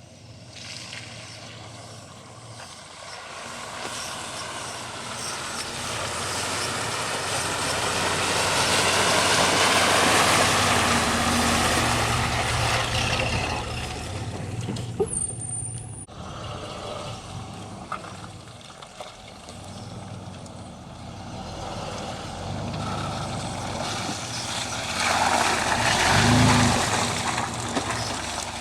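Chevrolet Blazer SUV engine working hard off-road, with a heavy hiss of noise over it. It builds steadily to a peak about ten seconds in, eases off, and rises again near the end. There is a sharp click about halfway.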